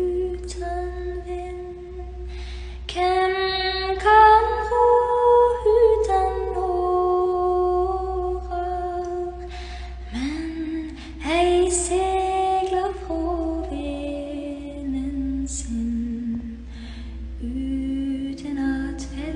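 Background music: a woman singing slow, long-held notes over a steady low drone.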